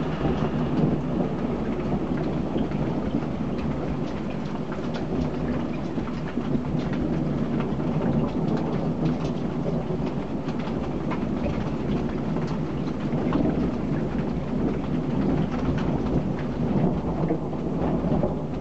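Heavy rain falling, with scattered sharp drop ticks over a steady low rumble.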